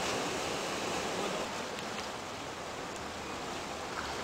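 Sea surf washing and foaming among shoreline rocks: a steady rushing hiss of water.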